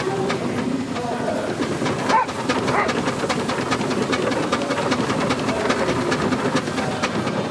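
Steam engine working the winch: a steady hiss of steam with a rapid, regular run of exhaust beats and clanks, several a second.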